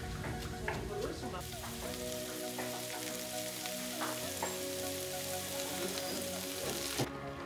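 Strips of carrot sizzling as they fry in a wok over a gas flame, with a steady hiss that starts about a second and a half in and cuts off shortly before the end. Soft background music runs underneath.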